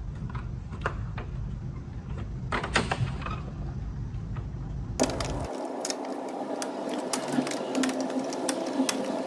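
Plastic clips of a 2022 Toyota Tundra's front grille being pushed and released by hand: scattered sharp clicks and snaps of hard plastic, with handling rattle of the grille. About five seconds in, the background changes abruptly and the clicks come thicker.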